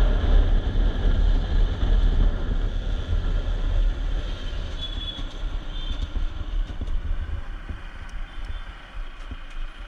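Bajaj Pulsar RS 200 motorcycle riding along in city traffic: a steady low engine and road rumble that eases off and fades over the second half as the bike slows into a traffic jam. A brief high tone comes in about five seconds in.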